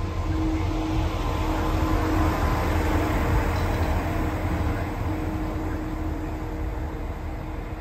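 Network Rail electrification train passing close by at slow speed: a steady low rumble of wheels on rail with a constant droning hum, easing off slightly near the end.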